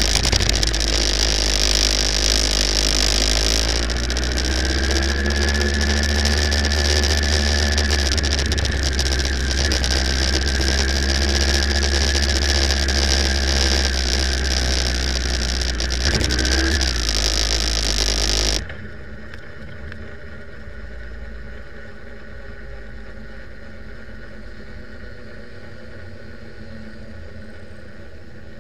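Sport motorcycle ridden on track, heard from on board: the engine and heavy wind noise, the engine note rising and falling slightly. About two-thirds through it drops abruptly to a quieter, steady sound of motorcycle engines idling.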